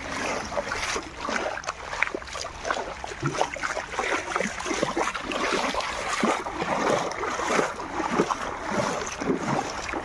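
Shallow floodwater sloshing and splashing in quick, irregular splashes as something is pushed through it.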